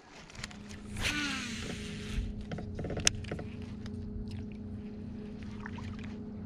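Bow-mounted electric trolling motor running with a steady hum that starts about half a second in. About a second in, a baitcasting reel's spool whirs out on a cast and falls in pitch, followed by a few sharp clicks about three seconds in.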